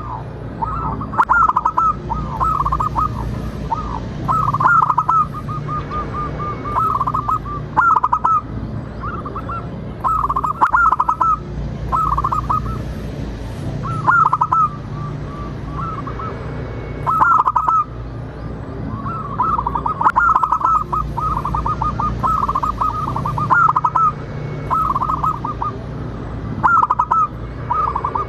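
Zebra dove cooing again and again: staccato phrases of short, quick notes, some drawn out into a rolling trill, over a low steady hum.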